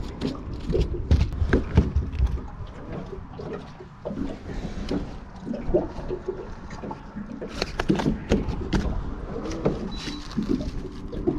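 Scattered knocks, taps and rustles of a landed bream and fishing gear being handled on a carpeted boat deck, over a steady low rumble.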